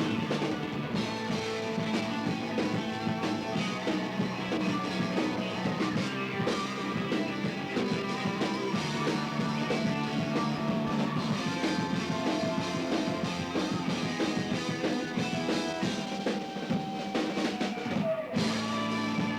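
Heavy metal band playing live: two electric guitars, bass and drum kit. A held note slides down just after the eighteen-second mark.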